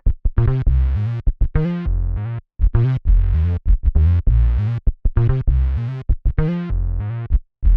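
Funky synthesizer bass line played on a software instrument preset: a run of short, punchy notes with brief gaps between them, heavy in the low end.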